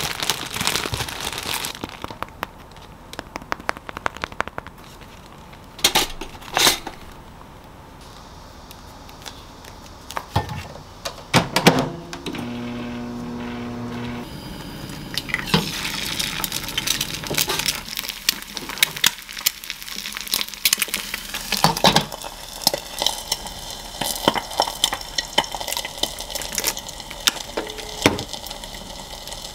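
Kitchen food-prep handling sounds: scattered clicks and knocks of dishes, glassware and utensils. About twelve seconds in, a steady hum lasts about two seconds.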